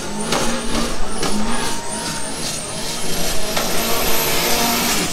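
Drag-racing car's engine at high revs with a high whine. The whine pulses and wavers at first, then holds steady and higher from about three and a half seconds in.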